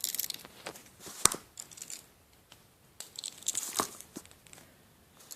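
Handling noise from a small Swiss Army pocket knife being fiddled with in the hands: crinkly rustling, with two sharp clicks, one about a second in and another near four seconds.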